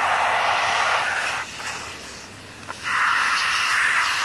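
Water from a garden hose spray nozzle hissing as it blasts onto a plastic battery tray. The spray eases off about halfway through and then comes back on full.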